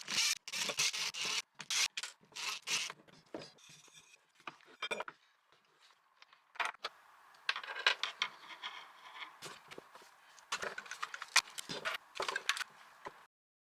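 A Metabo cordless angle grinder being handled and taken apart by hand: irregular scraping, rubbing and sharp clicks of its housing and parts, with a quieter stretch midway, cutting off abruptly near the end.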